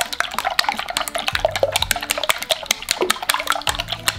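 Chopsticks whisking beaten eggs in a glass bowl: quick, rapid clicks of the chopsticks against the glass with the liquid egg sloshing.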